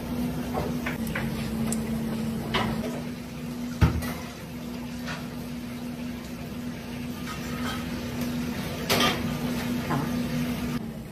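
Small clicks and taps of hands peeling raw prawns and threading them onto thin wooden skewers on a plastic cutting board, over a steady low hum. A sharper knock comes about four seconds in, and a louder clatter near nine seconds.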